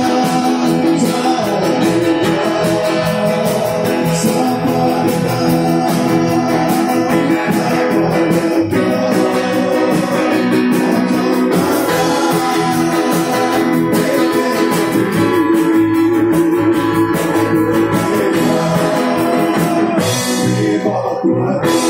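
Music with guitar and singing, playing without a break.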